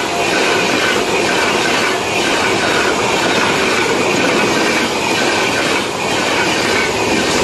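Indian Railways LHB passenger coaches passing close at high speed: a loud, steady rush of steel wheels on rail, with a faint rhythmic clatter as the bogies cross the rail joints.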